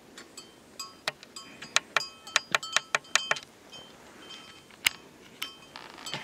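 Metal clinking: a quick run of sharp clinks that each ring briefly, busiest from about two to three and a half seconds in, then a few single clinks.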